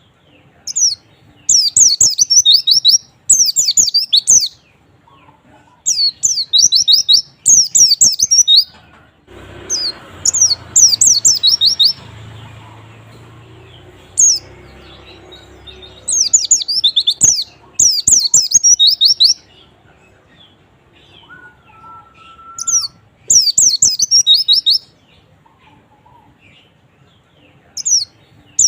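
White-eye (pleci) song played as a lure recording to coax a quiet white-eye into singing. Loud phrases of rapid, high twittering notes, each lasting a second or two, repeat with short pauses between them. A low rushing noise runs under the song for several seconds near the middle.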